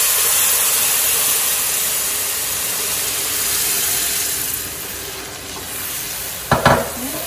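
Sugar water hitting hot ghee-roasted semolina in the pan, sizzling and hissing loudly as it bubbles up. The hiss slowly dies down. Near the end a wooden spoon starts stirring, with a couple of knocks against the pot.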